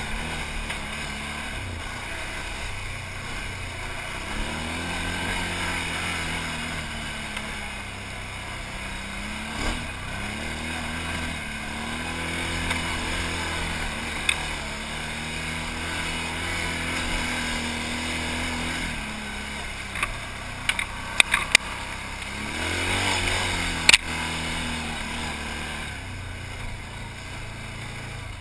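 Can-Am Outlander XMR 1000 ATV's V-twin engine running under load on a steep rocky climb, revving up and easing off several times. Several sharp knocks come from about two-thirds of the way through.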